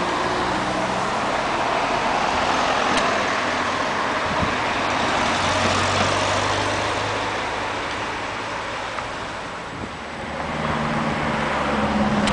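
Road traffic on a city street: cars going by in a steady wash of engine and tyre noise. It eases off briefly about ten seconds in, then swells again as another vehicle comes closer.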